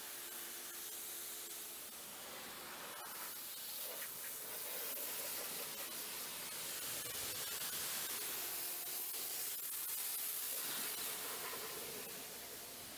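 Pressure-washer jet spraying water onto a van's painted side panels, rinsing off snow foam: a steady hiss that grows a little louder in the second half.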